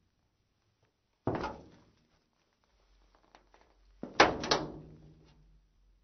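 Slow footsteps of women's heeled shoes on metal, two steps: each is a sharp strike with a short metallic ring. The second, about four seconds in, is louder and lands as two or three quick hits.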